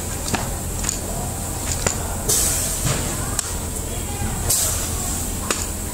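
Tabletop cardboard grooving machine: the hand-pushed cutter carriage runs along its rail, its blade scraping a groove into the board with a hiss. There are two passes, a longer one about two seconds in and a shorter one near the end, among light clicks and knocks from the carriage.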